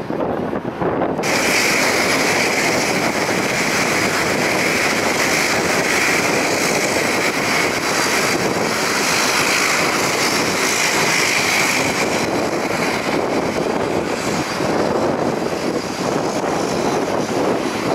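Turboprop airliner engines running on the apron: a loud, steady rush with a high whine that starts abruptly about a second in and fades after about two-thirds of the way through.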